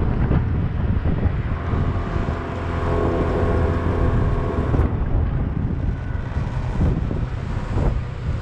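Strong wind buffeting the microphone in a heavy rumble, with a steady humming tone for a few seconds in the middle.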